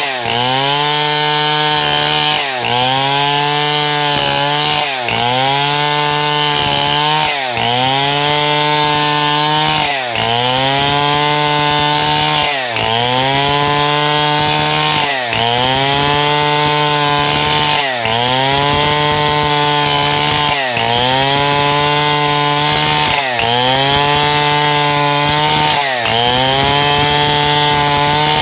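Stihl MS070 two-stroke chainsaw running at high speed, cutting wood. Its engine pitch dips sharply and recovers about every two and a half seconds.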